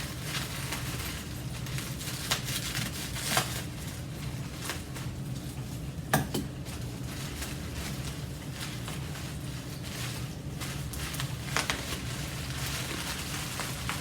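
Hands unpacking wrapped parts from a box: rustling of packing material with scattered clicks and a few light knocks, over a steady low hum.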